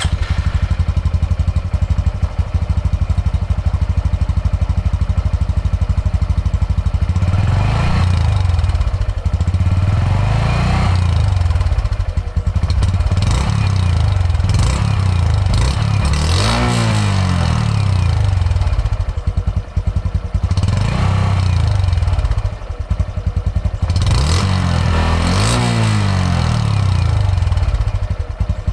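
Exhaust of a 2021 Honda Trail 125 (CT125) single-cylinder four-stroke, running right after a cold start. It idles with a steady fast putter, and from about eight seconds in the throttle is blipped several times, the revs rising and falling each time.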